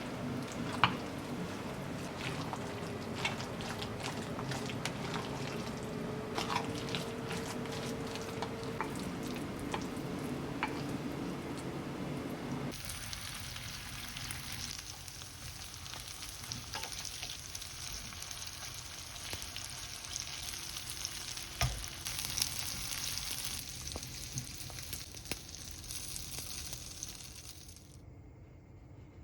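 Food frying in a pan, with scattered utensil clicks as it is stirred. About halfway through the sound changes abruptly to a brighter, higher sizzling hiss, which fades near the end.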